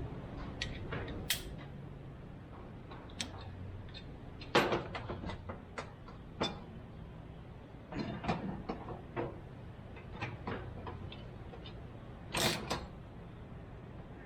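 Irregular metallic clicks, clinks and knocks of hand tools and parts being worked on a pickup's steering-column shift linkage, the sharpest knocks about four and a half seconds in and near the end, over a steady low hum.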